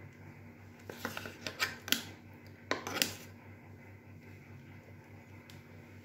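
Metal spoon scraping and clinking inside a stainless-steel mixer-grinder jar while scooping out soft ice cream: a cluster of short scrapes about a second in and another burst near the middle, over a faint steady hum.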